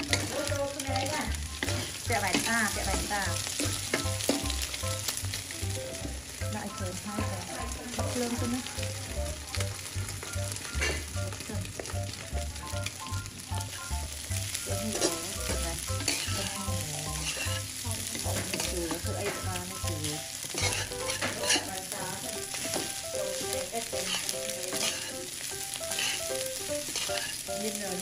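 Fried rice sizzling in a hot wok, stirred and scraped against the pan with a metal ladle and a wooden spatula. The scrapes and knocks come over and over against a steady frying hiss.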